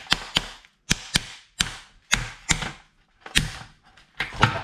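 Metal meat-tenderiser mallet striking a raw lobster's claw to crack the shell: about ten sharp knocks with uneven gaps between them.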